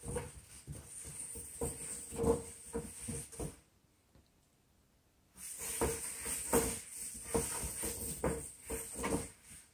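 Corrugated cardboard cat scratcher shoved and flipped about on a wood-look floor by a playing cat: irregular scraping, rustling and light knocks. It stops for about two seconds in the middle, then starts again.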